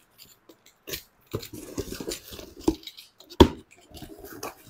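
A cardboard carton being cut and opened with a utility knife: scraping and rustling of tape and cardboard flaps, with scattered clicks and a few knocks, the loudest about three and a half seconds in.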